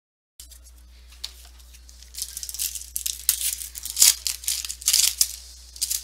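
A trading-card pack wrapper being torn open and crinkled in the hands: a run of sharp crackling rips and rustles that starts soft and grows louder and busier over the last few seconds.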